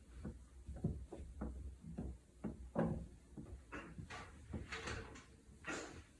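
A run of short, irregular clicks and knocks, roughly three a second, some with a brief soft low tone in them.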